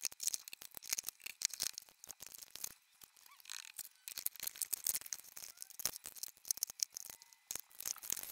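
Plastic makeup compacts and a plastic organiser tray clicking and clattering as they are handled and rearranged in a drawer: a dense run of small knocks and rattles.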